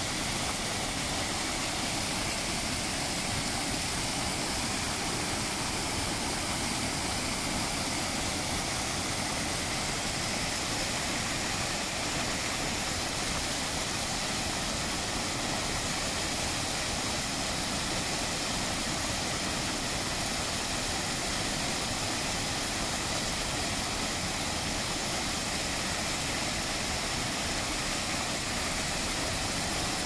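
The Keila waterfall: river water pouring over a wide rock ledge in a steady, unbroken rush that does not change.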